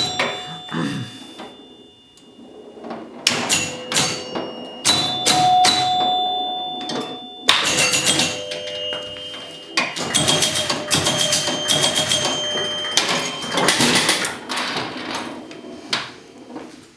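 1976 Gottlieb Surf Champ electromechanical pinball machine in play: its scoring chimes ring out several times over rapid mechanical clicking and clacking. There is a brief quieter lull about two seconds in.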